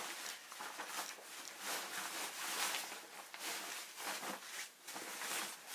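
Fabric of a deflated inflatable sofa bed rustling and rubbing as it is pulled about and unfolded by hand, in a series of irregular swishes.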